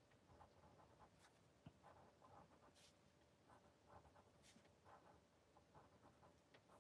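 Very faint scratching of a coloured pencil making short, irregular strokes across painted paper.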